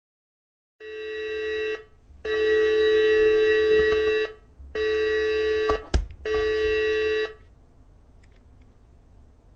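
Emergency alarm tone: a harsh, buzzing electronic tone sounds four times in bursts of one to two seconds, with a sharp click just before the fourth. A faint low hum follows.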